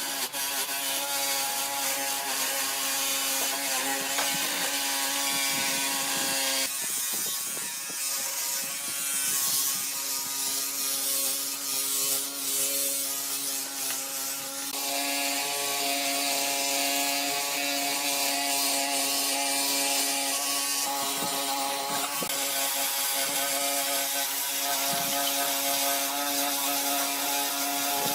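Woodworking power tool running with a steady motor whine and a mechanical rattle. The sound shifts abruptly twice, about a quarter and about halfway through.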